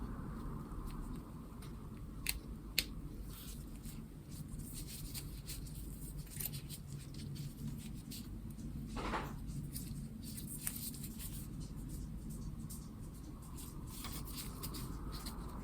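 Irregular small clicks, taps and crinkles of hands handling a Logitech G915 keyboard and its packaging, with a short scrape about nine seconds in.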